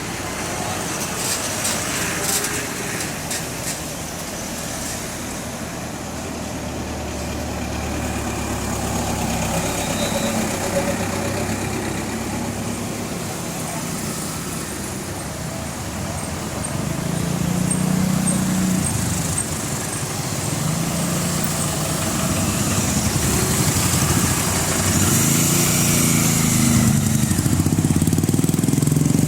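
Vehicle engines running and passing, with people's voices in the background; an engine grows louder over the last several seconds.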